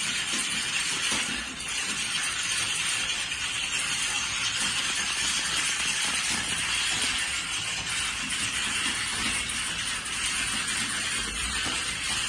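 Many computer keyboards being typed on at once: a dense, steady clatter of overlapping keystrokes.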